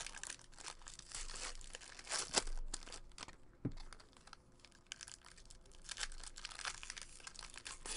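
Plastic-foil wrappers of baseball card packs crinkling and tearing as packs are opened, with cards being handled; a steady run of crackling rustles and short sharp rips.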